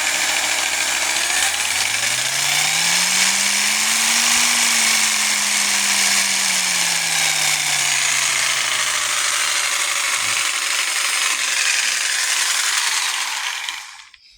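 Blue Ridge 4.5-amp corded jigsaw running, its speed turned up and then back down. The motor's pitch rises for about three seconds, sinks slowly, and the saw shuts off just before the end.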